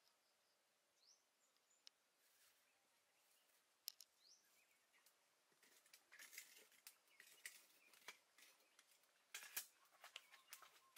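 Quiet faint bird chirps, then from about six seconds in a ladle scraping and clinking against a cooking pot in short bursts, with one sharper knock near the end.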